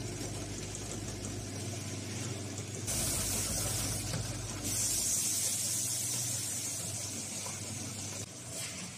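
Snack packaging machine's vibratory feeder running with a steady low hum, while potato chips slide and rustle along its stainless-steel trays. The hiss swells about three seconds in and again past the midpoint.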